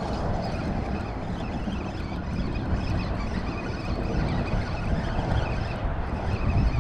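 Wind buffeting the camera microphone: a steady, fluttering low rumble.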